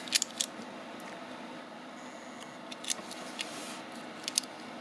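Several short sharp clicks as a small work light is switched on and handled: a cluster at the start, one about three seconds in and a quick pair near the end, over a steady faint hiss.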